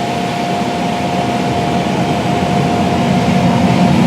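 John Deere S670 combine running in the field, a steady high whine over continuous machinery noise that grows slightly louder near the end.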